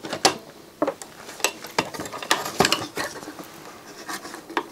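Irregular clicks and light knocks of a printed circuit board being turned over and handled on a workbench, with a soldering iron taken up.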